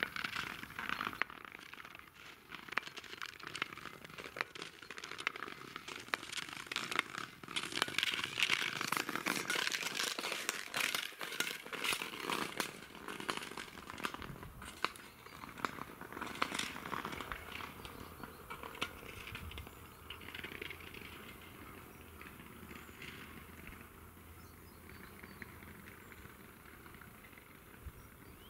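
Ice skate blades scraping and crackling over thin natural ice. The sound is loudest in the first half and fades away over the last several seconds.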